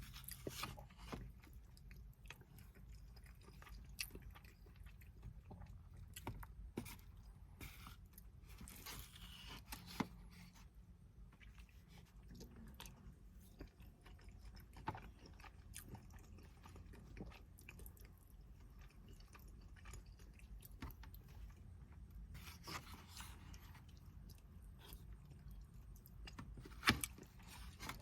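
Close-miked chewing and crunching of takeout food, with scattered small clicks, brief rustles and one sharp click near the end.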